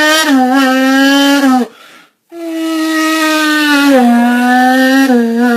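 A man vocally imitating a sport-bike (crotch rocket) engine, voiced into a can: two long, loud buzzing notes with a short break about two seconds in, the pitch dropping in steps.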